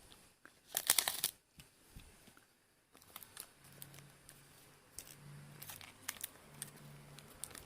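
Scotch tape pulled off its roll in a short crackling rip about a second in, followed by faint handling clicks as the tape is pressed down.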